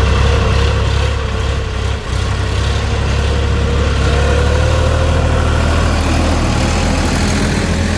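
Heavy diesel engine running steadily at low revs, with a faint whine that rises slightly about halfway through and a brief dip in level about two seconds in.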